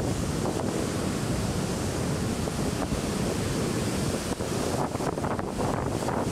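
Rough storm surf breaking and washing up the beach in a steady roar of noise, with wind buffeting the microphone.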